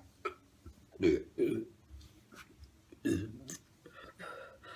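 A young woman burping: two loud burps in quick succession about a second in, then another loud burp about three seconds in.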